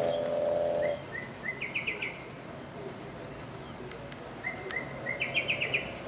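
Yellow-rumped cacique singing two matching phrases, each a few short notes and then a quick run of higher notes, about a second in and again near the end. A loud steady drone stops about a second in, and a faint high ticking runs underneath.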